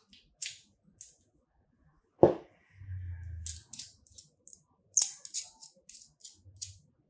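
Hands handling a RODE VideoMic NTG shotgun microphone and its red plastic shock mount, with short rustles, scrapes and ticks of foam and plastic. One sharp knock about two seconds in is the loudest sound.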